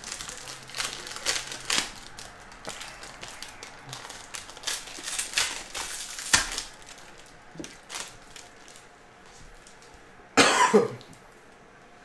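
Foil wrapper of a trading-card pack crinkling and tearing as it is opened by hand, in a run of short crackles. About ten and a half seconds in, a person coughs; this is the loudest sound.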